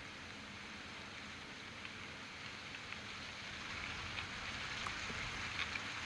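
Steady outdoor hiss picked up by an eagle nest-cam microphone, growing a little louder in the second half, with scattered faint ticks.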